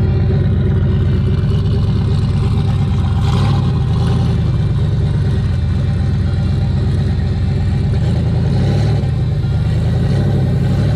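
Car engine running steadily, a deep even drone with no change in pitch.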